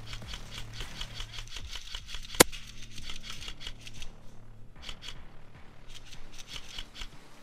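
Airsoft gunfire: a rapid, irregular clatter of shots and BB hits, with one sharp, much louder crack about two and a half seconds in and a short lull about two seconds later.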